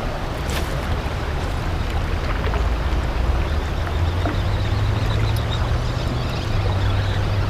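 Boat motor running with a steady low hum that drops slightly in pitch near the end.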